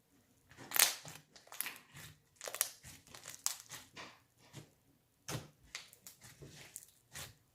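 Thick butter slime being handled by hand, making a string of irregular crinkly crackles and pops.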